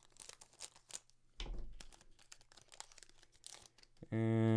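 Booster pack wrappers and trading cards crinkling and rustling in the hands, in short scattered crackles, with a soft thump about a second and a half in. Near the end a man's voice breaks in with a loud, held tone.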